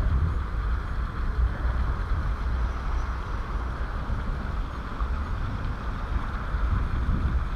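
Steady outdoor background noise: a low rumble with a soft hiss, with no goose calls.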